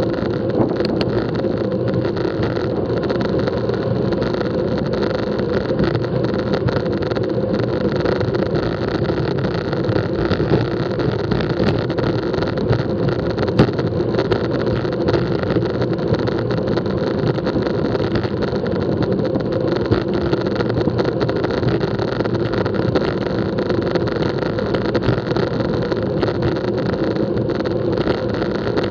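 Steady rushing wind on a bicycle-mounted action camera's microphone at racing speed, mixed with the hum of road-bike tyres on asphalt, with a few light clicks.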